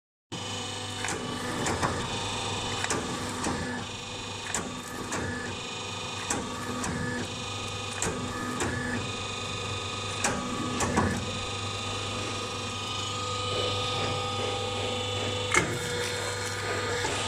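Scrap electric motor stator recycling machine running with a steady hum, an intermittent whirring and irregular clicks and knocks as a copper-wound motor stator is worked against its cutter. After about twelve seconds the whirring gives way to a steadier tone.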